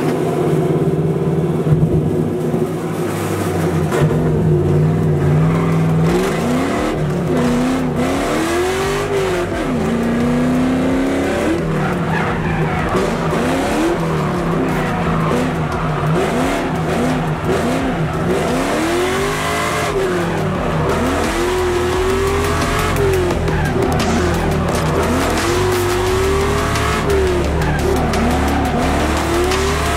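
Engine revving hard up and down again and again, with tyres squealing and skidding as a vehicle drifts or does a burnout. The revs swing up and down about every one to two seconds from several seconds in.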